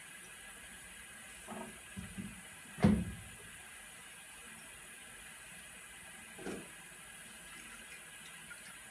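Handling sounds of laboratory glassware and a rubber stopper at a filter-crucible rack: a few brief knocks and bumps, the loudest about three seconds in and another near seven seconds, over a steady faint hiss.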